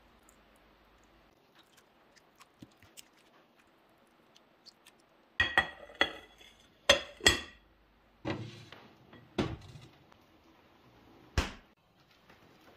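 Glass kitchenware clinking and knocking together: about eight sharp knocks in the second half, some ringing briefly like glass, a few duller.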